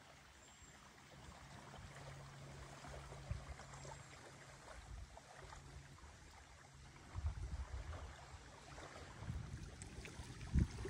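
Faint lakeside ambience with a distant motorboat droning steadily. From about seven seconds in, wind gusts rumble on the microphone, with a single bump near the end.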